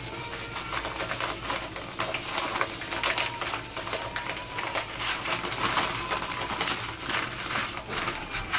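Dry rice grains pouring from a plastic bag into a pot of boiling water: a dense, irregular run of small clicks and patter.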